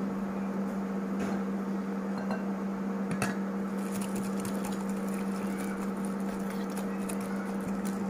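Wire whisk stirring flour into cake batter in a glass bowl: soft scraping with a few faint clinks of the whisk against the glass, over a steady low hum.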